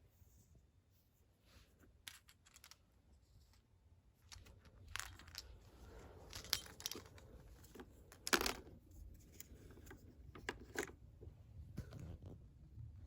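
Handling noises: a run of small clicks, rustles and knocks as objects are handled, starting about four seconds in, with one sharper, louder click a little past the middle.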